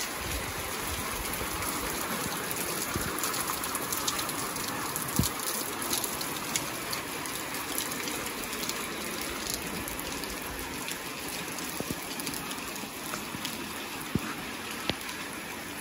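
Light rain falling steadily on a wet yard: an even hiss with many scattered sharper drop taps.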